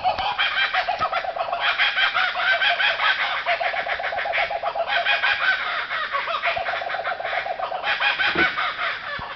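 A group of laughing kookaburras calling together in a loud chorus of rapid, repeated cackling notes that swells and fades in waves.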